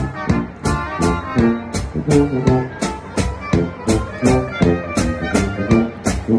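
Live polka band playing a Ländler, with the tuba loud and close, over a steady drum beat and the rest of the band: concertina, clarinets and trumpets.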